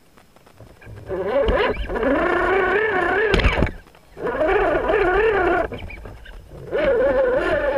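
RC rock crawler's electric motor and gears whining in three bursts of throttle, the pitch wavering as it works through brush. There is a sharp knock about three and a half seconds in.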